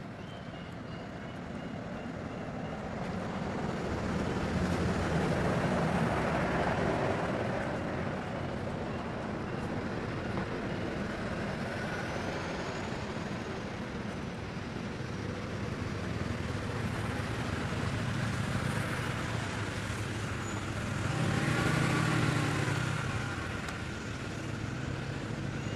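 Road traffic going by: a steady engine and tyre rumble that swells as a vehicle passes about a quarter of the way in, eases, then swells again as another passes near the end.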